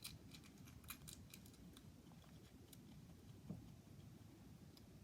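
Faint, irregular clicks of a fidget cube's buttons and switches being pressed, most of them in the first second and a half.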